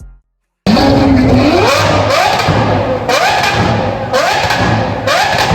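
Car engine revving hard, its pitch climbing again and again about once a second, starting abruptly after a moment of silence.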